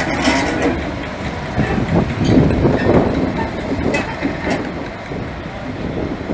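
Class 31 diesel locomotive 31285 passing slowly, its English Electric V12 engine running, with a few short knocks in the middle. The sound fades toward the end as it moves away.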